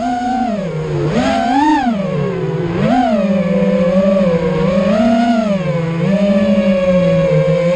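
FPV drone's electric motors whining, the pitch rising and falling with the throttle about once a second, then holding steadier in the last few seconds.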